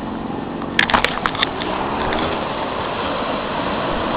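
Small ocean waves breaking and washing up a sandy beach, a steady rushing noise, with a quick run of sharp clicks about a second in.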